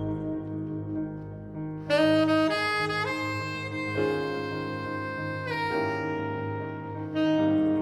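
Tenor saxophone playing a slow jazz ballad melody in long held notes, moving to a new pitch every second or so. A soft low accompaniment sustains underneath.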